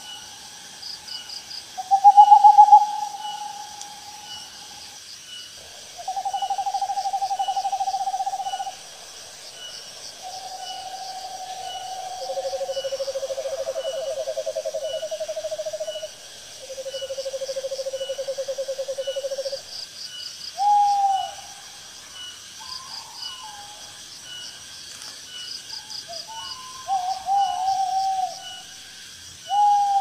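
An owl calling, a series of long, steady, quavering notes each a couple of seconds long, shifting to a different pitch from one note to the next. Shorter bent hoots follow in the last third. Insects keep up steady, rhythmic ticking and chirping underneath.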